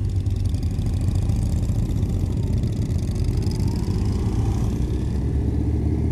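Motorcycle engines running steadily on the ride, a deep, even rumble mixed with rushing noise on a helmet-mounted mic.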